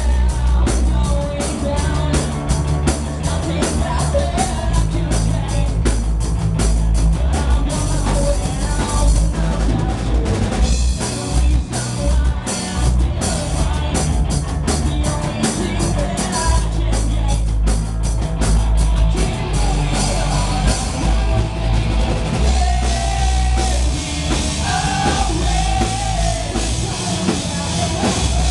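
A live punk rock band playing at full volume: distorted electric guitars, bass and a drum kit with fast, constant cymbal and drum hits, with a singer's vocals. The drumming thins out about three quarters of the way in, and the sung line stands out more clearly toward the end.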